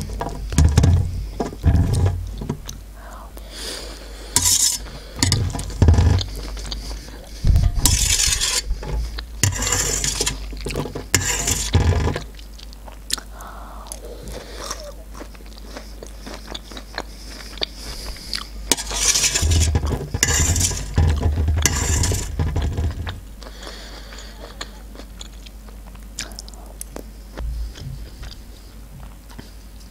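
A metal fork scraping and clinking on a metal serving tray while scooping up canned sweet corn kernels, with close-miked chewing. Two busy stretches, through the first twelve seconds and again around the twentieth second, then it goes quieter.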